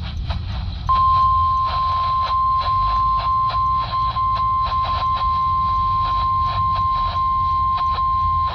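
NOAA Weather Radio 1050 Hz warning alarm tone: one steady, loud, high beep that starts about a second in and holds, the signal that a warning message is about to follow. It comes through a RadioShack 12-254 weather radio's speaker over a background of static hiss with regular crackling pops.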